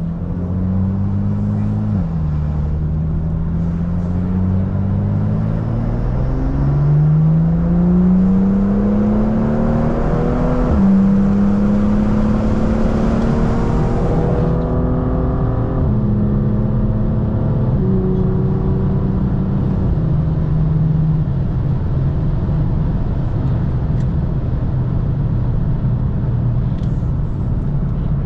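BMW M2 F87's turbocharged straight-six engine pulling up through the revs, with sharp drops in pitch at upshifts about two seconds and about eleven seconds in, then running at a steadier pitch with small rev changes. It is being driven on an easy cool-down lap, not at full throttle.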